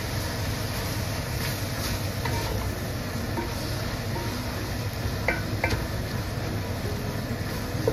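Wooden spoon stirring and tossing chopped beef tripe and meat as it sautés in a stainless steel pot, with a light sizzle and a few sharp knocks of the spoon against the pot, two close together a little past halfway, over a steady low hum.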